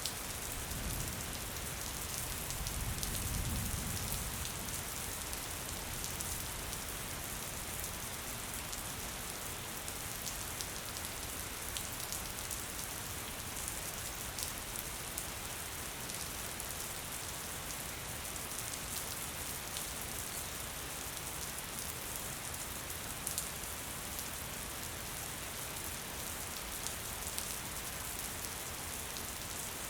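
Light, steady rain: an even hiss of falling rain with scattered drops ticking on surfaces. A soft low rumble swells and fades in the first few seconds.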